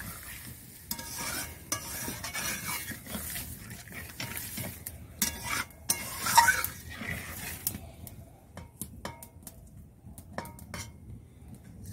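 Metal spatula stirring a thick, simmering curry gravy in a metal kadai, scraping and clinking against the pan over a soft sizzle. There is a brighter clink about six seconds in, and the strokes thin to scattered taps over the last few seconds.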